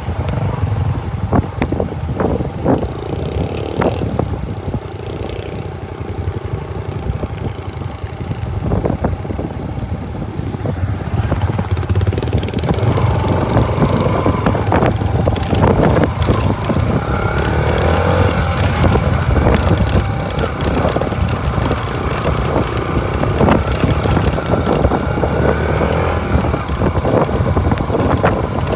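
Motorcycle engine running while riding over a rough gravel track, with scattered knocks and rattles from the bumps. About eleven seconds in the sound gets louder and busier as the bike picks up speed, the engine note rising and falling.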